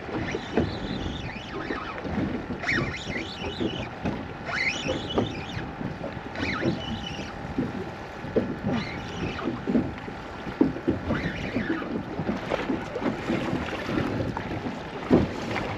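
Choppy water slapping irregularly against a small boat's hull, with wind buffeting the microphone. A sharp knock near the end.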